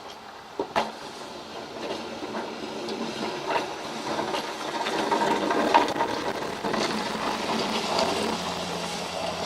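Pickup truck with a snowplow blade pushing snow, a scraping hiss of blade and snow with the truck's engine underneath, growing louder as it comes nearer. Two sharp clicks about a second in; a low steady engine hum settles in near the end.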